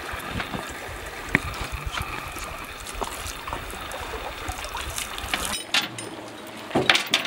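Water running from a garden hose and splashing and trickling over the wet sheets draped on a stranded orca. After a cut near the end, a few sharp metallic clinks from a chain being handled.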